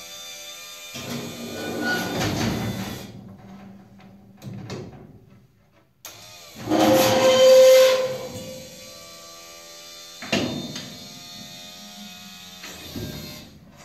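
Powered hood mechanism on a monster truck running as the hood tilts down and back up: stretches of mechanical whirring and hiss, with a loud pitched hissing whine lasting about two seconds around seven seconds in.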